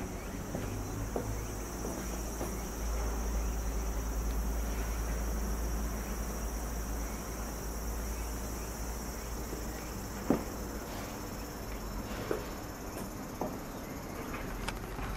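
Steady high-pitched chirring of insects, with a low rumble on the microphone and a few light knocks, the sharpest about ten seconds in.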